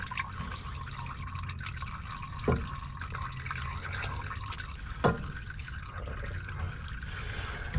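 Used engine oil draining from a diesel pickup's oil pan into a catch pan: a steady splashing trickle, with two louder plops about two and a half and five seconds in.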